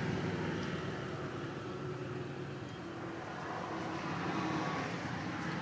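Motorcycle engines on a group ride passing along the road: the sound eases off after one bike goes by, then builds again as the next bikes approach.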